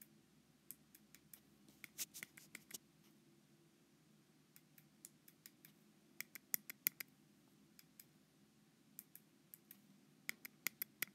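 Light taps and strokes on an iPad's glass screen as tally marks are drawn and numbers crossed off: short sharp clicks in quick clusters of several, with pauses between them, over a faint low hum.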